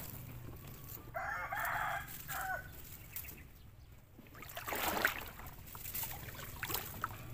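A rooster crowing once, about a second in, with a short trailing note. A brief noise follows near the middle.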